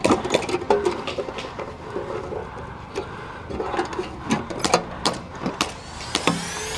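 Airsoft guns firing: irregular sharp clacks and cracks in quick runs. Near the end a rising musical sweep comes in.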